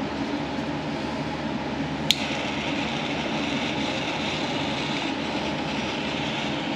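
Handheld heat tool running steadily as it shrinks heat-shrink tubing over a parking brake cable's sheath, a continuous hum with hiss. A sharp click comes about two seconds in, after which a higher hiss joins and holds.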